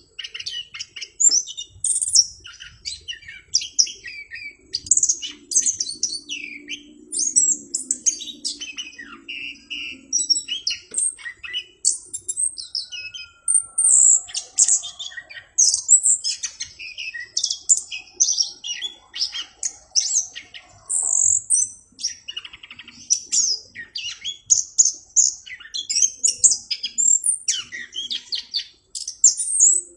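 Orange-headed thrush in full song: a fast, nearly unbroken stream of high, varied chirps, whistles and trills.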